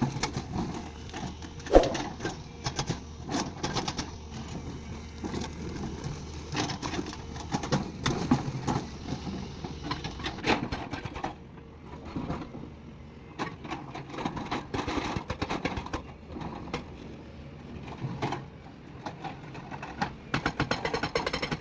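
Excavator working: a steady low engine hum under irregular clanks and knocks, turning into a fast, even clatter near the end.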